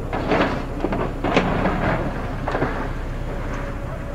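Building demolition: several crashes of concrete and steel debris as an excavator tears into the mall structure, over a steady low rumble of heavy machinery. The loudest crash comes about a second and a half in.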